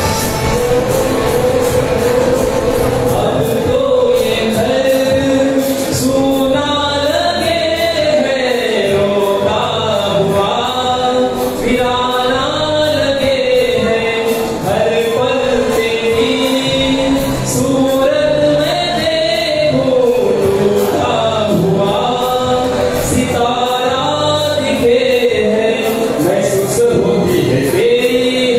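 A man singing a tribute song (shraddhanjali geet) into a handheld microphone, the melody rising and falling in long held notes.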